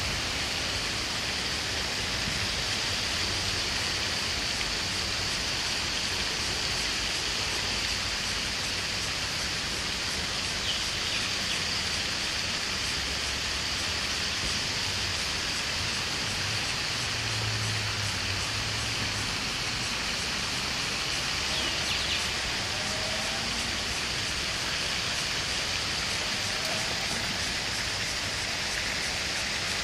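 Steady, even hiss of running water, with a couple of faint short chirps about a third and two thirds of the way through.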